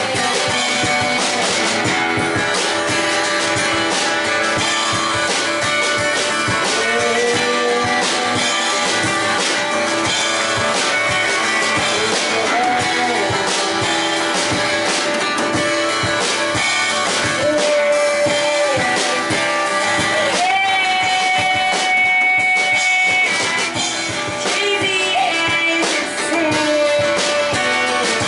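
A small band playing live: a woman singing into a microphone over a strummed acoustic guitar and drums. She holds one long note about twenty seconds in.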